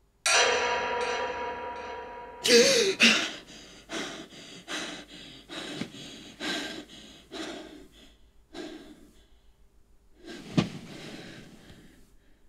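A sudden loud, piercing sound that fades over about two seconds, then a woman's sharp gasp as she jolts awake from a nightmare, followed by heavy panting breaths, about one and a half a second, slowly dying away. Near the end comes a short knock with a rustle.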